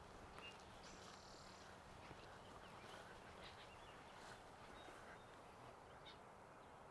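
Near silence: faint outdoor ambience with a few faint, short bird calls, one buzzy call about a second in.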